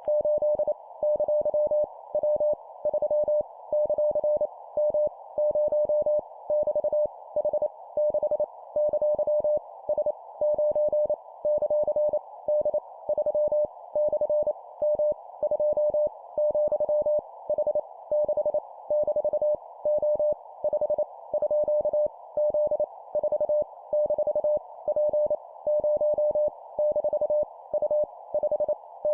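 Morse code (CW) practice at 25 words per minute: a single steady mid-pitched tone keyed on and off in rapid dits and dahs, sending random letters, numbers and punctuation over a steady hiss.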